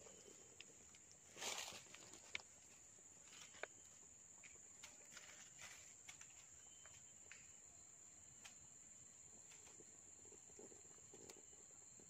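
Faint rustling and scraping of a stick and hands working in a burrow hole among soil and dry leaves, with a louder rustle about a second and a half in. Under it runs a steady, high insect drone.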